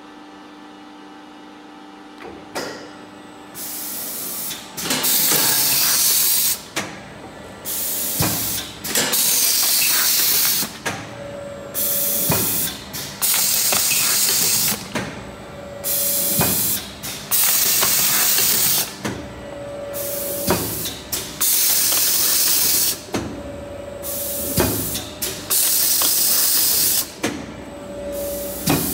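12-station rotary bakery machine with twin heads running through its cycle: bursts of compressed-air hiss every couple of seconds, with clunks and clicks in between. A steady hum comes first, and the cycling starts a few seconds in.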